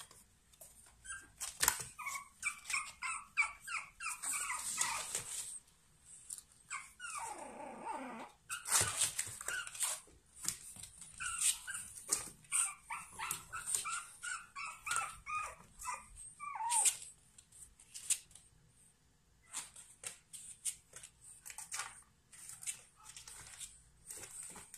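Pug puppies whimpering and yipping in short, high-pitched squeaks, in two bouts: a couple of seconds in and again around the middle. Scattered small clicks and taps run throughout as the puppies move about the playpen.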